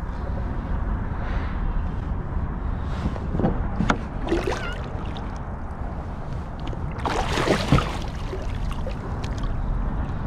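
Water sloshing against a kayak under a steady low rumble of wind on the microphone. A few scattered knocks and splashes come through, the loudest about seven seconds in.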